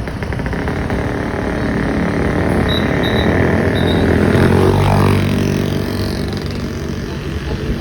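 A vehicle's engine passing close by, growing louder to a peak about five seconds in and then fading, with a few short high-pitched chirps around three seconds in.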